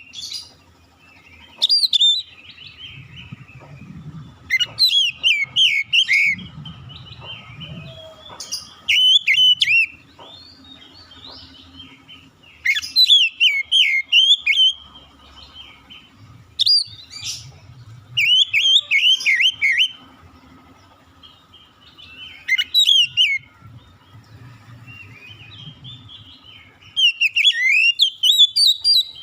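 Oriental magpie-robin singing: about ten short bursts of rapid, varied whistled notes, each lasting a second or two, separated by pauses.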